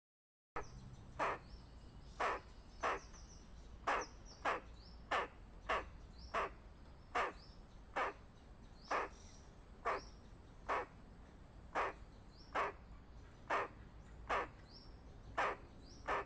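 A squirrel giving its alarm call: a short call repeated about once a second, slightly irregularly.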